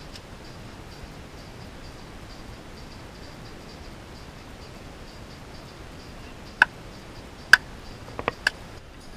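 A wooden mallet knocking a splitting blade down into a billet of wood on a chopping stump: two loud sharp knocks about a second apart, then a few lighter knocks in quick succession near the end. A steady hiss with faint regular ticking lies under it.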